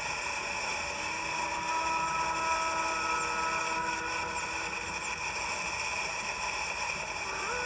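Steady drone of idling boat engines, with a few faint high descending chirps.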